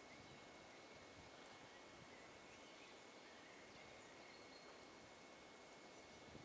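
Near silence: the faint steady hiss of a quiet forest, with a thin, steady high tone running under it.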